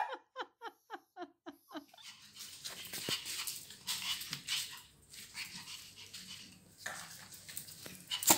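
Pomeranian dogs making small, soft sounds as they move about on a tiled floor. A short, fading run of quick pitched sounds comes first, in the opening two seconds.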